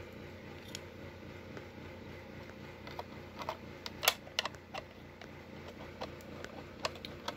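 Scattered sharp plastic clicks and knocks from handling the toy's battery compartment and trying to fit its door back on, the loudest about four seconds in, over a steady low hum.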